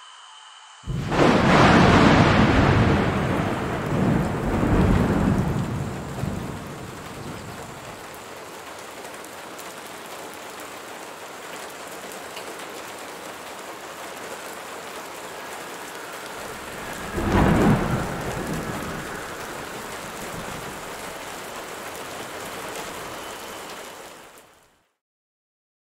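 Thunderstorm: a loud thunderclap about a second in rolls away over several seconds over steady rain, a second thunderclap comes about two-thirds of the way through, and the storm fades out just before the end.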